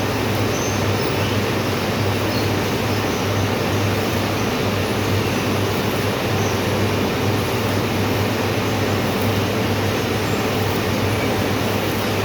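Electric arc welding: a steady hiss over a low electrical hum.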